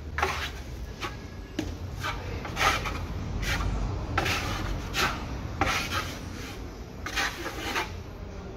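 Steel trowel scraping joint compound across drywall, a rasping stroke repeated about one to two times a second. It is the first coat of compound being spread and smoothed over a self-adhesive mesh patch on a hole.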